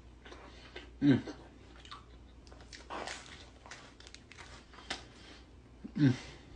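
A person biting and chewing a slice of pizza, with wet crunching and smacking mouth sounds. Two short vocal sounds come about a second in and near the end.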